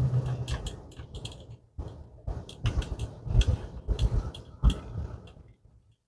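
Irregular clicks and knocks over a low hum inside a slowly moving car. The hum fades within the first second, and the sound cuts off abruptly near the end.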